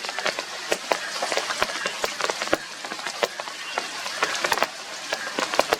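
Rain falling, with many irregular drops striking close by over a steady hiss.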